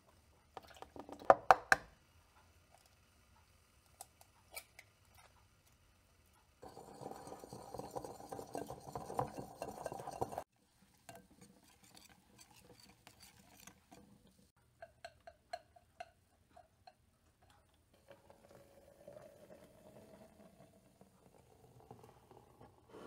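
A metal wire whisk beating pancake batter in a ceramic mixing bowl: a few sharp knocks and clinks against the bowl near the start, the loudest sounds, then several seconds of fast scraping and tapping as the batter is whisked, and later a short run of ringing taps on the bowl. Near the end, water pours into a glass French press.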